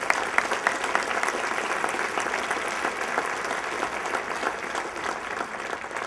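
Audience applauding: many hands clapping together in a steady patter that eases off near the end.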